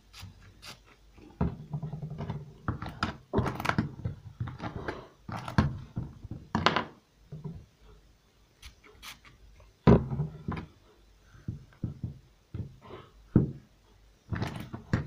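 Irregular knocks, thumps and short hisses from handling a doll and a pump-spray bottle of detangling spray, as the spray is applied to the doll's hair.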